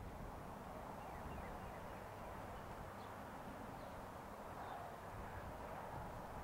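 Faint outdoor ambience: a steady hiss with a low rumble, and a few short bird chirps now and then.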